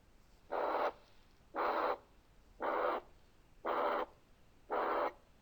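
Recorded heart sounds of a ventricular septal defect: a loud, harsh pansystolic murmur lasting from S1 to S2, with S1 not separable from the murmur's start. It repeats five times, about once a second, with quiet diastole between.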